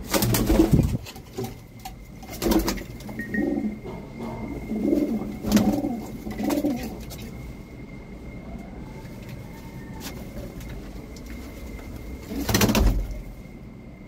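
Pigeon cooing in low, repeated phrases through the middle of the stretch. Loud rustling bumps come at the start and again near the end.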